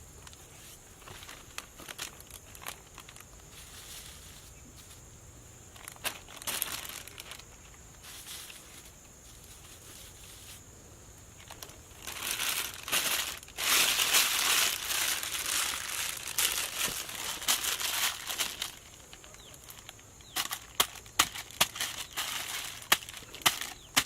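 Crinkling and crushing of dry material, growing louder and denser about halfway through, then a run of sharp knocks, about two a second, near the end.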